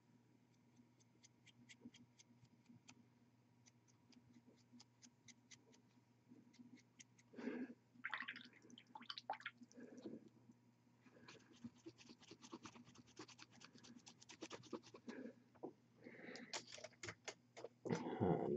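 Paintbrush dry-brushing a miniature: many quick, faint scratching strokes of the nearly dry bristles over the model, with a few louder rustles partway through.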